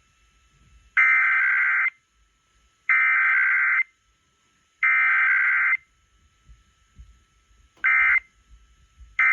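Emergency Alert System SAME data bursts, two-tone digital signalling, on an EAS test. Three bursts of about a second each, two seconds apart, carry the repeated alert header. Two short bursts near the end are the end-of-message code.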